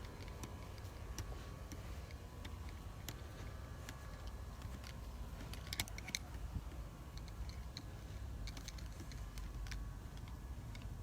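Faint low rumble with scattered light clicks and ticks at irregular intervals, a few louder ones about six seconds in.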